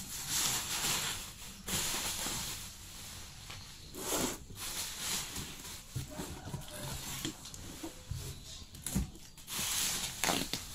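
Plastic packaging being handled, rustling and crinkling in irregular bursts.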